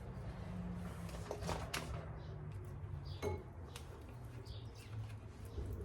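Hands wrapping electrical tape around ignition switch wiring: a few sharp crackles and clicks of the tape and wires, over a steady low hum.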